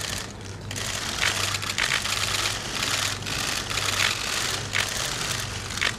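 Many press cameras' shutters clicking in rapid, overlapping bursts, over a steady low hum.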